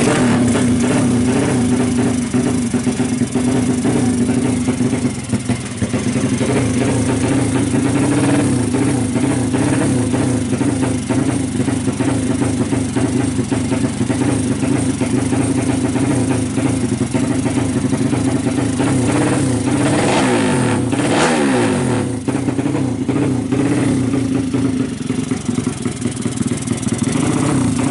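Race motorcycle's 200cc engine running hard at high, steady revs; about twenty seconds in the pitch drops briefly and then climbs again as it backs off and accelerates.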